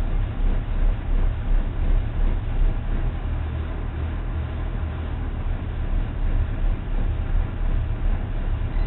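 Motor cruiser's engine running at slow cruising speed, a steady low rumble heard from inside the cabin behind the windscreen.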